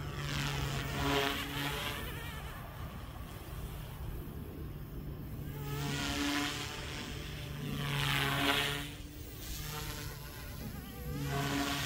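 Small electric RC helicopter (Goosky S2) flying on resin-printed main blades at a lowered 60% throttle curve: a buzzing motor-and-rotor whine that swells and fades about four times as it moves nearer and farther.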